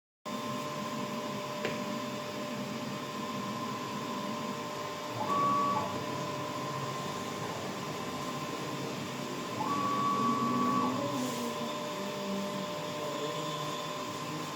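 Gemstone-faceting CNC machine running with a steady electric whine from its stepper motors. It gets louder with a slightly higher tone twice, about five seconds in and again around ten seconds, as the motors make a move.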